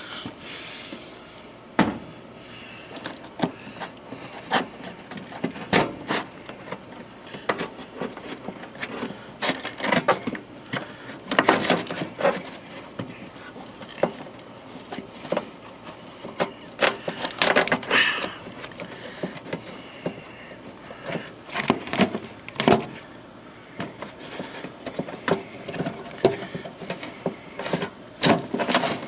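Hands working wiring-harness plugs loose from an HVAC unit's control board: irregular clicks, snaps and rattling scrapes of plastic connectors and wires.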